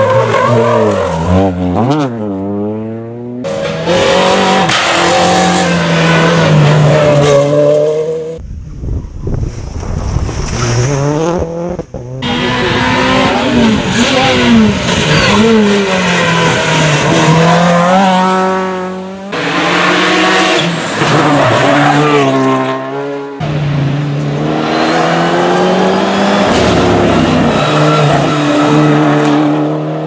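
Rally cars' engines revving hard past the microphone one after another, the pitch climbing and dropping with each gear change, with tyres squealing through the corners. The sound changes abruptly several times as one car gives way to the next.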